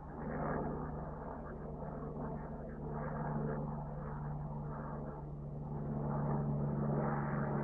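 Helicopter flying over, a steady engine and rotor drone with a low hum that swells a little louder toward the end.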